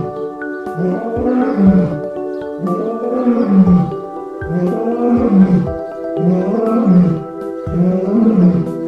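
Big cat roaring in a series of repeated deep grunting calls, about one a second, over background music.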